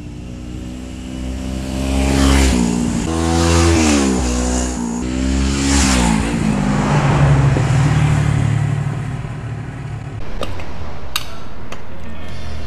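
Kawasaki Z250 motorcycle's parallel-twin engine accelerating past, its pitch rising and falling several times. About ten seconds in it gives way to a steady hiss with a few sharp clicks.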